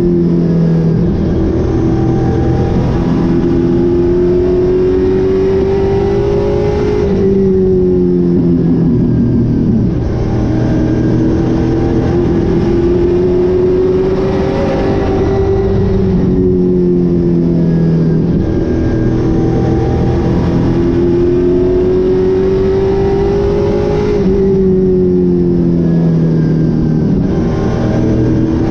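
Super late model race car's V8 engine at racing speed. Its pitch climbs along each straight and drops sharply lifting into each turn, about every eight seconds, with three drops in all.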